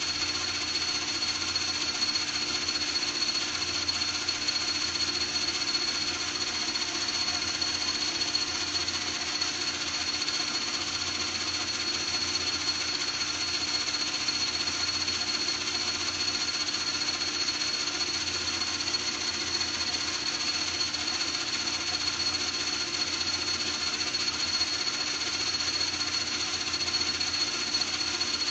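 A machine tool running steadily while cutting metal, with a constant high-pitched whine over the motor hum.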